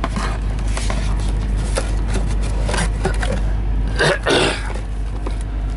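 A hand rummaging in and handling an empty cardboard box, giving scrapes, rustles and light knocks, over a steady low hum. A short mumble comes about four seconds in.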